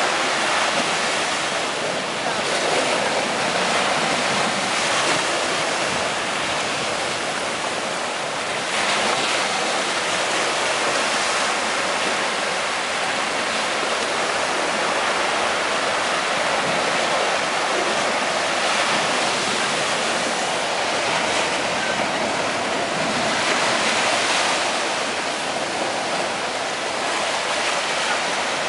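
Ocean surf breaking and washing up a sandy beach in a steady rush that swells and eases every several seconds.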